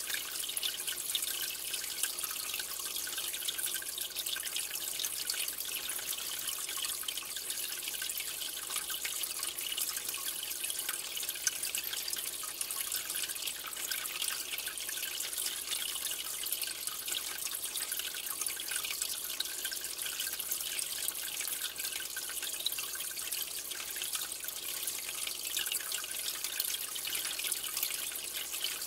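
Aquarium water bubbling and trickling steadily, a continuous fine crackling hiss of bubbles and running water.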